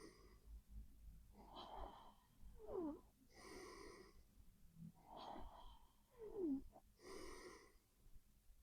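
A sleeping person's faint, heavy breathing through the nose, a slow in-and-out cycle about every three and a half seconds. Each cycle carries a short whistle that falls in pitch.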